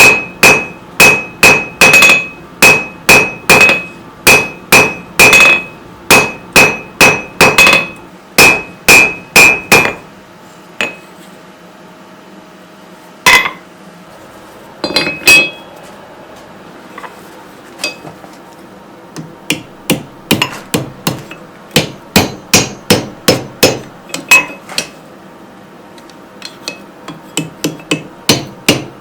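Blacksmith's hand hammer striking hot steel on an anvil, a steady run of about two blows a second, each ringing out with the anvil's clear tone. After a pause broken by a few single blows, lighter, quicker blows with less ring follow near the end.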